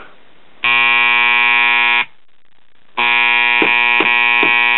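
Realistic STA-64 stereo receiver's speakers buzzing with a loud 120-cycle filter-capacitor hum. The hum cuts in about half a second in, drops out at two seconds and comes back about a second later. Hand slaps on the cabinet top knock through it about four times, because jarring the set makes an intermittent connection in its power-supply filter capacitor come and go.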